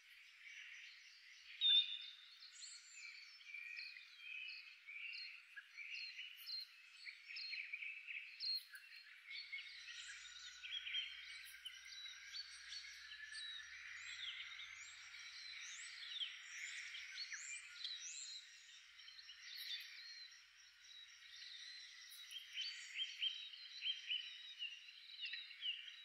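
Many small songbirds chirping and twittering at once, a dense chorus of short high calls and trills, with one louder chirp about two seconds in.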